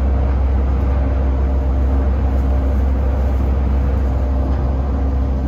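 Bombardier Innovia APM 256 people-mover train running steadily at speed on its rubber tyres along the concrete guideway, heard from inside the car: a loud, even low rumble with a faint steady hum over it.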